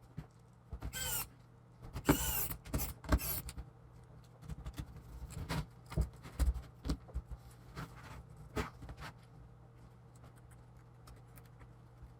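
Plastic laptop parts being handled and pressed together: several short squeaks and scrapes in the first few seconds, then scattered light clicks and taps that die away after about nine seconds.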